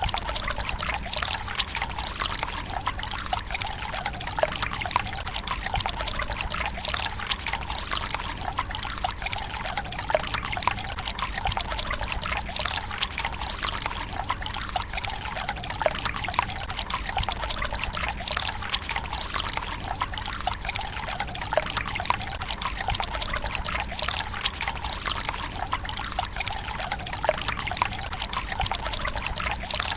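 Water running from a bamboo spout into a stone tsukubai basin, a continuous trickling and splashing with no breaks.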